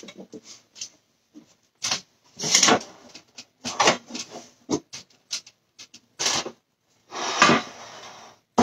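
Kitchen handling noises: rustling and sharp knocks in short bursts every second or so, with a longer rustle near the end.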